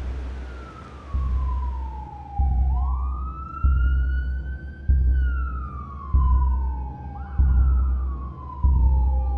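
Emergency-vehicle siren wailing, its pitch sliding slowly down and back up, over a deep thud that repeats about every 1.2 seconds.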